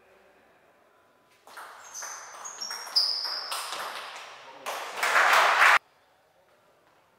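Table tennis rally: the ball clicking off bats and table in a quick run of strokes with high ringing pings, starting about a second and a half in. About five seconds in comes a loud burst of noise, the loudest thing here, which cuts off abruptly.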